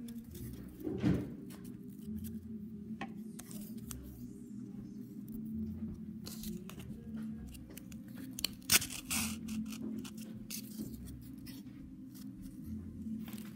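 Cardboard pieces scraping, rustling and clicking as they are pushed and twisted onto a stick, with two louder knocks, about a second in and near nine seconds, over quiet background music.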